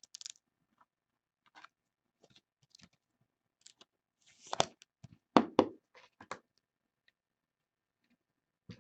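Trading card and plastic sleeve handling: a card slid into a clear rigid top loader, giving faint scattered rustles and clicks. Two louder scrapes come about four and a half and five and a half seconds in.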